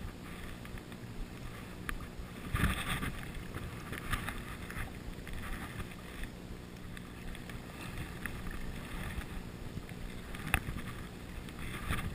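River water running over a shallow stony riffle, with sloshing and splashing in the water, loudest about two and a half seconds in, and a sharp click near the end.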